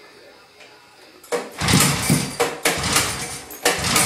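A vintage Rupp Sprint snowmobile's two-stroke engine fires about a second in, on its first start after twenty years of storage, and runs roughly, surging and dipping unevenly.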